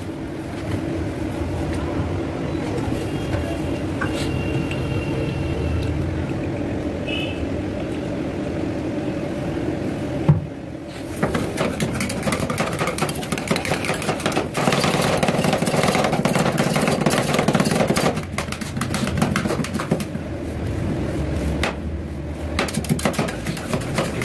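Two metal spatulas chopping and scraping on the steel cold plate of a rolled ice cream machine, working cream and chocolate pieces together, in a rapid clatter that gets louder about halfway through. A steady low hum runs underneath.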